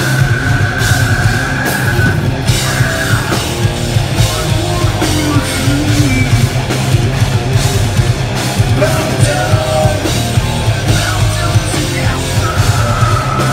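Live hard rock band playing loud: electric guitars, bass guitar and drum kit, with a held high note ringing over the top at the start and again near the end.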